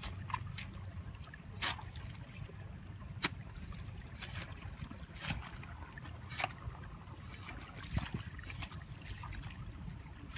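Water splashing and trickling now and then, in short separate splashes, over a steady low rumble.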